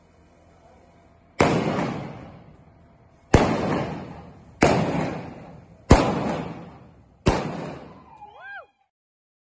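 Five gunshots from a single-action revolver firing black-powder blanks at balloon targets, spaced about one to two seconds apart, each echoing and dying away in the indoor arena. A short high call, rising and falling in pitch, comes near the end.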